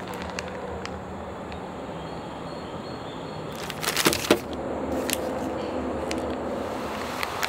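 Plastic food packaging crinkling and rustling as individually wrapped buns are tipped out of their outer bag onto a table, with a louder cluster of crinkles about four seconds in. A steady low hum runs underneath.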